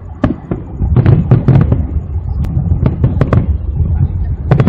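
Aerial fireworks display: a rapid, irregular barrage of shell bursts and crackling reports, several a second, over a continuous low rumble of explosions.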